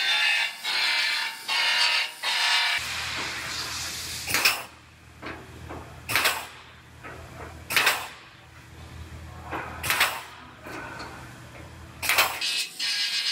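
Pneumatic belt sander running in short bursts on sheet-metal panel edges, then a pneumatic punch snapping plug-weld holes through the panel flange, five sharp hissing snaps about every two seconds, with a low hum underneath.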